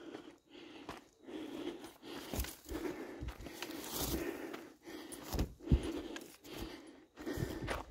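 A hiker's footsteps on a dirt and gravel trail at a steady walking pace, with a few sharper steps.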